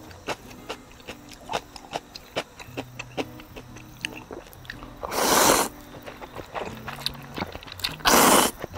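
A person eating instant ramen and kimchi: small chewing and clicking sounds throughout, with two loud noodle slurps about five and eight seconds in, over light background music.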